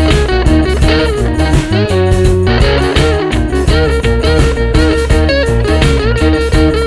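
Background music: an electric guitar playing bending, bluesy lines over a bass and a steady beat.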